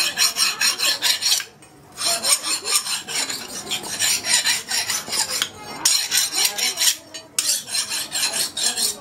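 Flat hand file rasping across the edge of a steel knife blade forged from an old bearing, in quick back-and-forth strokes, about four a second. The filing stops briefly three times, about a second and a half in, past the middle and near the end.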